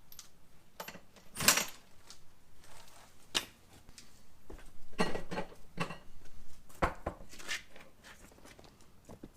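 Scattered metallic clinks and knocks from hand tools and go-kart wheel parts being handled, with a few brief louder clatters.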